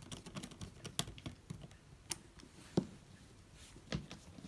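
Precision screwdriver working the screw of a small PCB screw terminal block: a few sharp, scattered clicks and ticks of metal on metal and plastic.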